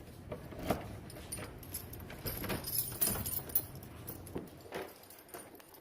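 Irregular clinks and knocks of keys and small objects being handled, over a steady hiss.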